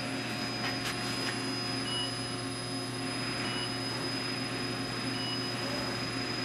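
Bridgeport Series 1 CNC vertical milling machine running, a steady electric motor hum with a thin high whine. A faint short chirp repeats about every second and a half.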